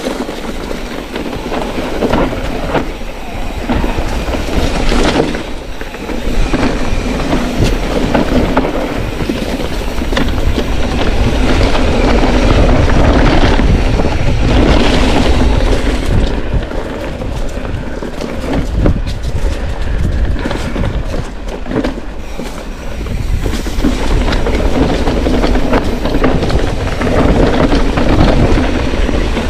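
Bicycle rattling and clattering over a rough trail at speed, with many irregular knocks and jolts, and wind rushing over the microphone.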